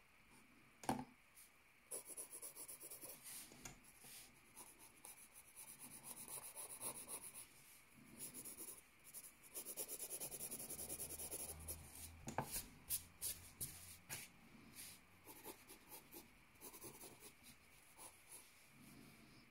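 Wooden pencil scratching on notebook paper in quick, faint shading strokes. There is a sharp tap about a second in and another a little past the middle.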